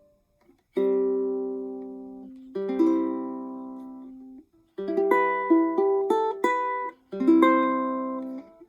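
PCH ukulele played fingerstyle: plucked chords left to ring and fade, then a quicker run of plucked melody notes over them, with short pauses between phrases.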